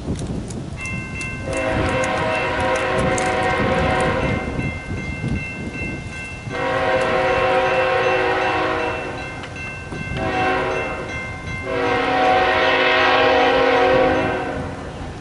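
Locomotive air horn of an approaching CSX freight train sounding the grade-crossing signal: long, long, short, long. Each blast is a chord of several steady tones, heard over a low rumble.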